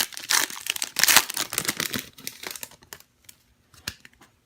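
A trading-card pack wrapper being torn open and crinkled, loudest during the first two seconds, followed by a few faint scattered clicks.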